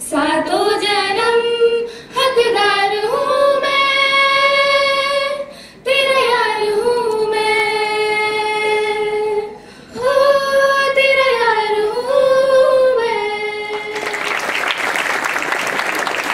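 Two teenage girls singing a slow melody into handheld microphones, unaccompanied, in long held phrases with short breaks for breath. The song ends about two seconds before the finish and the audience breaks into applause.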